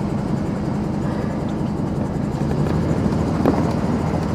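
Truck engine and road noise while driving slowly, a steady low rumble.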